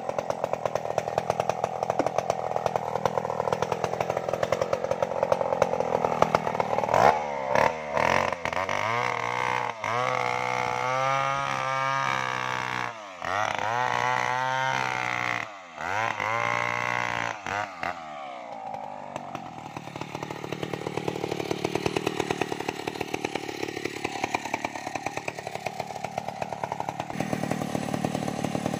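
Large two-stroke chainsaw, a home-assembled Stihl 070-type, cutting into a sengon tree trunk. The engine runs steadily at first, then its pitch repeatedly dips and rises for about ten seconds in the middle, and it runs lower and steadier near the end.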